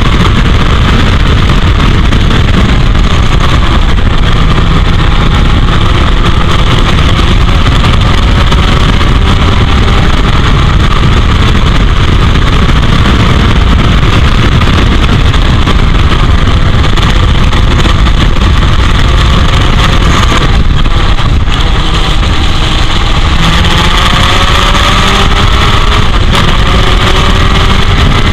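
Heavy wind buffeting on the microphone over a 1984 Royale S2 Sports 2000 racer's Ford 2.0-litre four-cylinder engine, driven hard on track. The engine note climbs again and again as it pulls through the gears, with a brief break about three-quarters of the way through.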